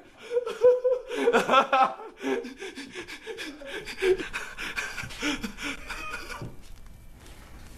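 A man laughing in repeated bursts that trail off about six and a half seconds in.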